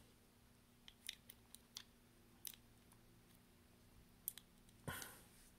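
Faint clicks and taps of the magnetic charging connector and fingers against the back of a smartwatch as the charger is fitted, with one louder tap near the end.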